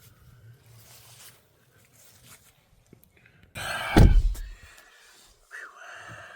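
A single heavy thump about four seconds in, just after a brief rush of noise, with quieter handling sounds around it.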